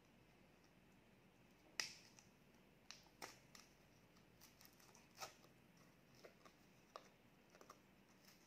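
Fingers peeling the wrapper off an ice cream cone: sparse, faint sharp clicks and crinkles, the loudest just under two seconds in.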